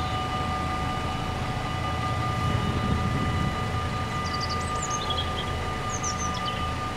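Dutch level-crossing warning bells ringing steadily while the half-barriers lift after the train has passed, over the low rumble of idling car engines. A few bird chirps come in over the second half.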